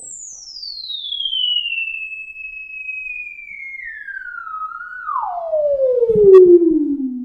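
Pure sine tone from an online tone generator sweeping steadily downward in pitch as its slider is dragged, from around 8 kHz to about 250 Hz. It pauses briefly near 2.5 kHz and grows louder as it drops into the low range.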